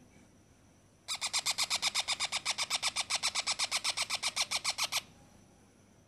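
Parrot chick's begging call: a rapid, even run of harsh chirps, about ten a second. It starts about a second in, lasts about four seconds and stops abruptly.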